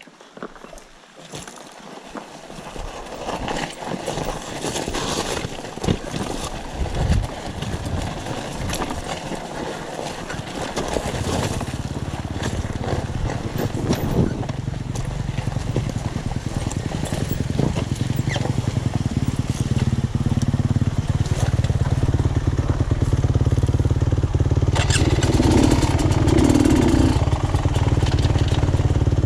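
Irregular knocks and scraping, then from about eleven seconds in a dirt bike engine running steadily at low revs, growing slightly louder toward the end.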